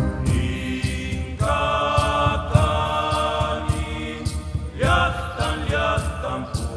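Background music: a chanted song with held vocal lines over a steady beat of about two percussion strikes a second.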